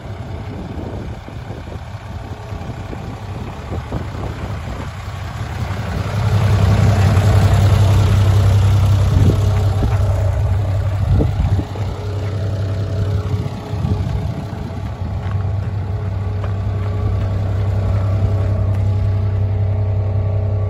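Mitsubishi Fuso Fighter dump truck's 6D16 inline-six diesel engine running steadily at idle, louder from about six seconds in.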